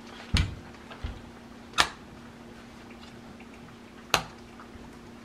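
Three sharp knocks, a couple of seconds apart, of M1 Garand metal and wooden parts (barrel, front handguard, gas system) being handled and fitted during reassembly. A faint steady hum runs underneath.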